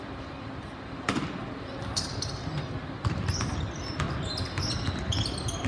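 A basketball being dribbled on a gym floor: four bounces about a second apart, with voices in the background.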